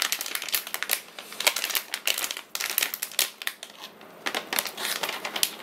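Plastic anti-static bag crinkling and crackling with rapid, irregular crackles as hands work it open, easing off briefly about four seconds in.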